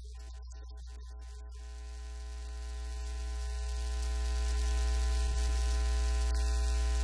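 Steady electrical mains hum with hiss, swelling in level over the first few seconds and then cutting off abruptly at the end.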